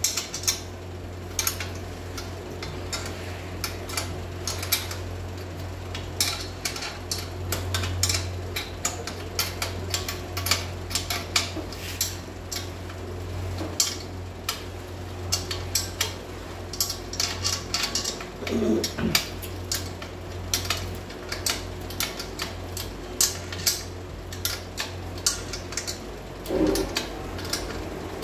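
Spanner tightening a nut and bolt on a weighing-machine frame: irregular metallic clinks and clicks of the wrench against the nut and metal, over a steady low hum.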